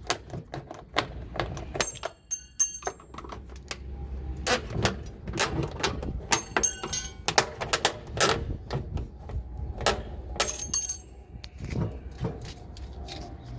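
Clips being pried off a washing machine's tub one after another: a rapid run of sharp clicks and snaps, with brief metallic jingling three times.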